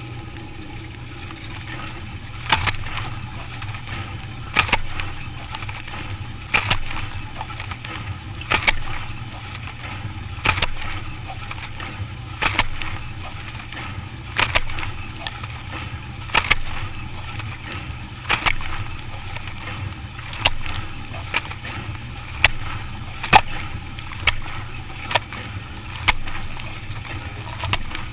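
Dishwasher machine running with a steady low hum, water splashing and clattering in sharp bursts that trail off, about every two seconds and quickening to about once a second near the end.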